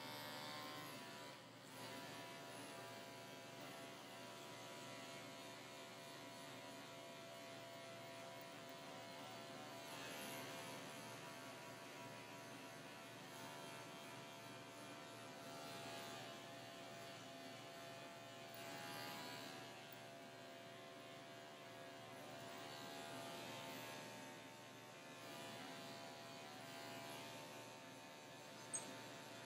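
Electric dog grooming clippers running with a faint, steady hum while shaving a dog's pelt-matted coat, with a few brief swells of hiss as the blade works through the mats.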